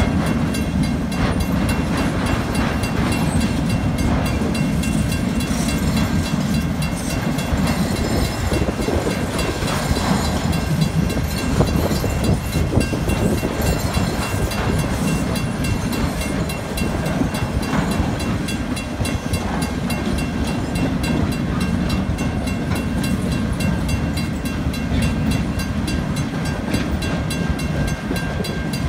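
Freight train cars rolling steadily through a level crossing: a continuous rumble of wheels on rail. A fast, even ringing from the crossing's warning bell runs over it.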